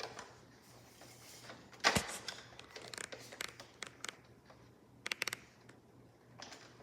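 Handling noises from cleaning a robot vacuum: a sharp knock about two seconds in, then scattered small clicks and scratches, with a quick run of clicks a little past five seconds.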